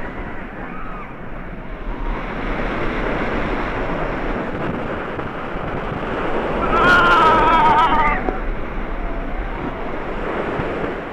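Wind rushing over the microphone and the low rumble of a Bolliger & Mabillard floorless dive coaster train running at speed. About seven seconds in, a rider gives a high, wavering scream lasting around a second.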